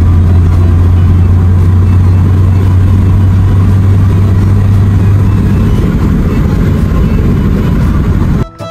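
Interior drone of a Citroën CX 2500 IE's 2.5-litre fuel-injected four-cylinder engine and road noise while cruising at about 80 km/h, heard inside the cabin: a deep steady hum over tyre and wind noise, the hum easing about two-thirds of the way through.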